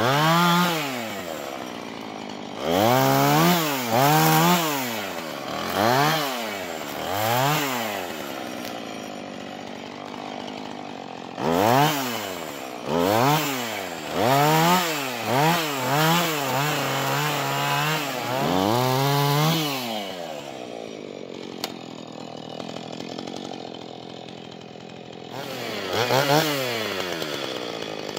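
Husqvarna 445 two-stroke chainsaw fitted with a hand-modified ripping chain, bucking a small log. Its engine is revved up and down in short bursts about a dozen times and held at speed twice for a couple of seconds in the middle. It then idles for several seconds before one last rev near the end.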